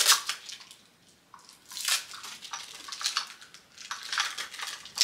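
Small white ceramic bowls being handled and nested together: a few short clinks and scrapes in separate spells, with some rustling.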